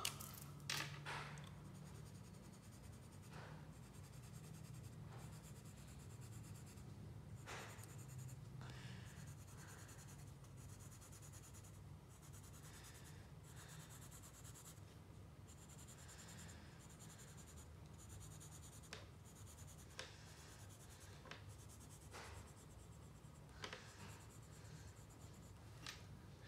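Felt-tip marker scratching over paper in faint, short colouring strokes, with a few light clicks, over a low steady hum.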